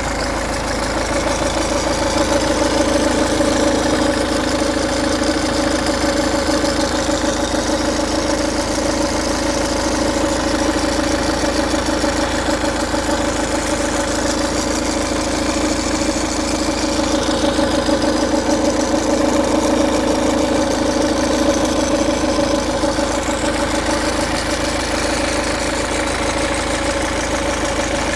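Ford DW10C 2.0 four-cylinder diesel engine idling steadily with a fast, even rattle, which the owner takes for timing chain rattle.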